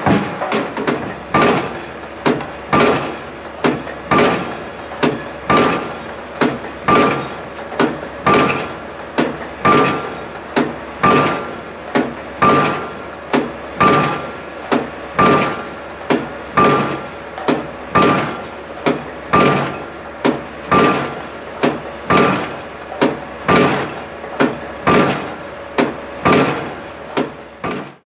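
Junttan PM25 piling rig's hammer driving a concrete pile: steady, evenly spaced blows at about three every two seconds, each followed by a brief ring, over the low hum of the rig's running engine.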